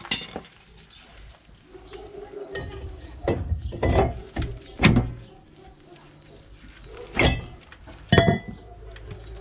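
Cast-iron rear brake drum of a Ford Transit MK6 being worked onto the hub over the new brake shoes and pulled off again: a series of separate metal clunks and knocks, the last one ringing briefly near the end.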